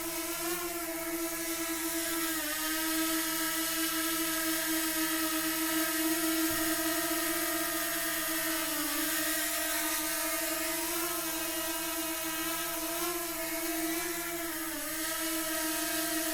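DJI Mini 2 drone in flight: the steady high whine of its propellers and motors. The pitch dips slightly a few times as the motors adjust.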